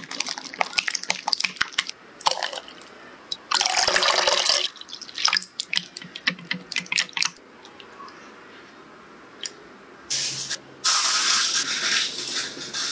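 Hand whisk beating egg whites and sugar in a glass bowl, with quick clicking and tapping of the wire whisk against the glass. About four seconds in there is a second-long rush of liquid being poured or splashed, and near the end aluminium foil crinkles as it is pressed over a bowl.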